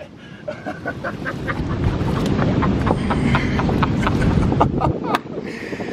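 Wind buffeting the camera microphone as a heavy low rumble that cuts off abruptly about five seconds in, with scattered clicks and knocks of footsteps over loose shoreline rocks.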